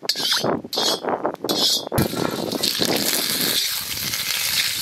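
Hot oil in an iron wok crackling unevenly, then raw potato chunks tipped in about two seconds in, setting off a steady sizzle of frying.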